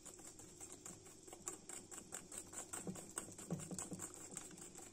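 Hand whisk beating chocolate batter in a stainless steel bowl: quick, light tapping and scraping strokes against the metal, several a second.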